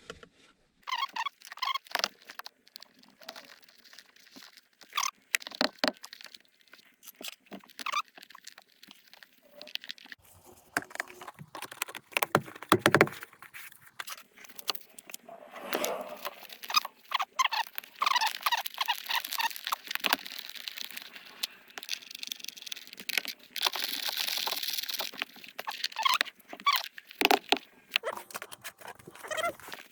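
Plastic kick panel trim being handled and fitted back into place: irregular clicks and knocks, scraping and rustling, and short squeaks of plastic rubbing on plastic.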